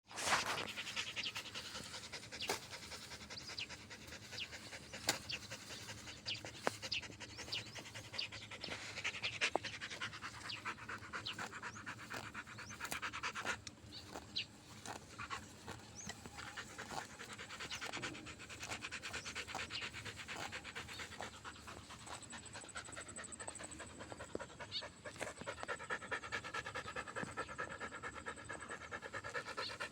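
A dog panting rapidly and steadily, with a few sharp clicks mixed in; such hard panting is a sign of a tired or overheated dog.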